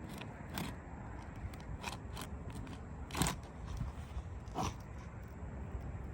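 Old, stiff and brittle asphalt shingles being pried loose: a scatter of sharp cracks and scrapes, the loudest about three seconds in and again a second and a half later.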